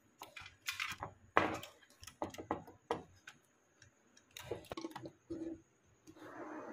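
Scattered small clicks and taps of a screwdriver and wire ends against a plastic screw terminal block as the wires are fastened to an air conditioner's control board.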